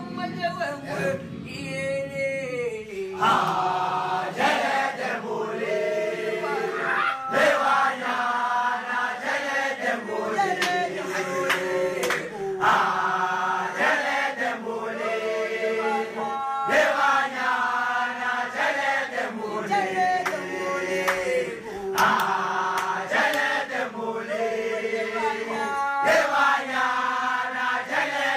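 Background music: a group of male voices singing a South African gwijo chant in unison, short sung phrases repeating every couple of seconds.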